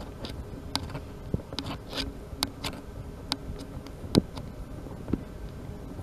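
Balance plough being drawn across a stubble field, its steel frame and wheels giving irregular clanks and ticks over a low rumble, with one heavier knock about four seconds in.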